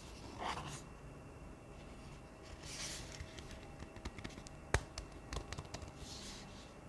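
Hands handling a wireless keyboard: short rustles with a run of sharp clicks and taps about two-thirds of the way through, the loudest a single hard click.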